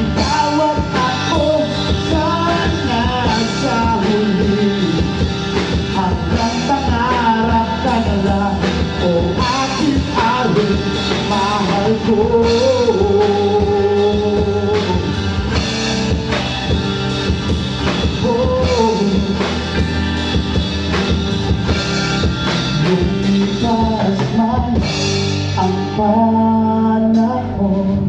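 Live band playing a slow pop-rock song on drum kit and guitars, with a wavering melody line held over steady chords.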